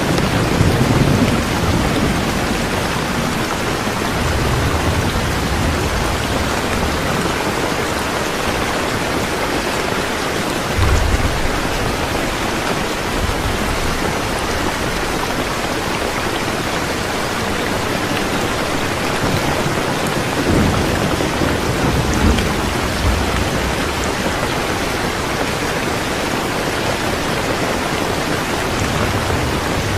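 Steady heavy rain falling, an even hiss, with low rumbles of thunder rolling in near the start, briefly about a third of the way in, and again for a few seconds past the middle.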